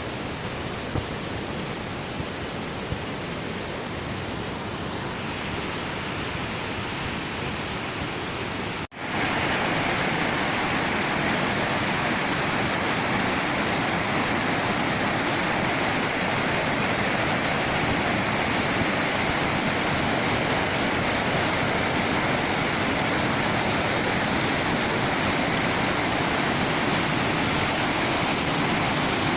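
Waterfall: a steady rush of falling water. It cuts out for a split second about nine seconds in and comes back a little louder; a few faint clicks in the first few seconds.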